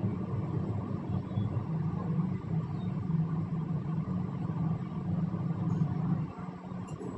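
Mini popcorn machine running with a steady low hum as it roasts chicken legs, easing off slightly near the end.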